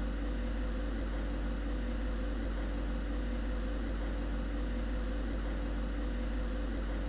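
Steady low hum with an even hiss, unchanging throughout, with no taps or other events.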